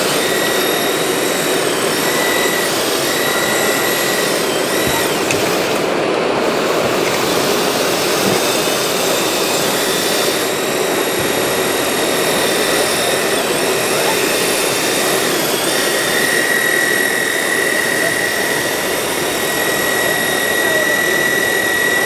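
Hydraulic pump and motors of a radio-controlled model Volvo wheel loader whining as it raises its boom and tips its bucket. The whine comes and goes early on and holds steady over the last third. Under it runs a constant loud rushing noise.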